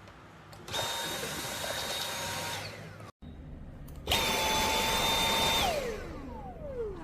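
Dyson cordless stick vacuum's motor switched on twice: each time it starts suddenly and runs with a steady high whine, then winds down with a falling pitch when switched off. The first run starts just under a second in; the second, louder, starts about four seconds in and is winding down near the end.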